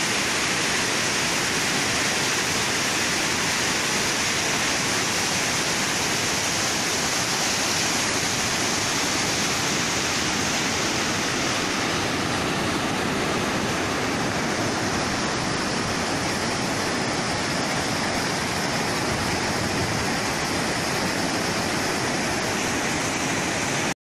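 Water rushing through an open dam sluice gate: a loud, steady, even rush of white water that cuts off suddenly near the end.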